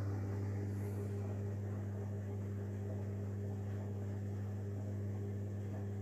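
Samsung WW80CGC04DAELE front-loading washing machine running mid-cycle on a 40°C bedding wash: a steady, low hum as the drum turns the wet laundry.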